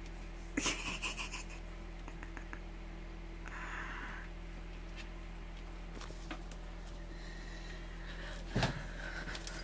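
Kittens' claws scrabbling and scratching on a carpeted cat tower and newspaper: a cluster of short rustles and clicks about a second in and a softer rustle around the middle, over a steady electrical hum. One sharp knock near the end.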